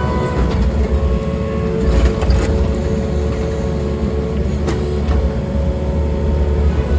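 Diesel engine of an earthmoving machine running steadily under load, with a faint whine and a few light knocks.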